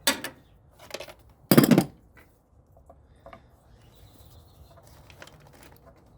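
Metal hand tools and parts clanking: a sharp clank at the start, another about a second in, then a louder rattling clatter lasting about half a second, followed by a few light ticks.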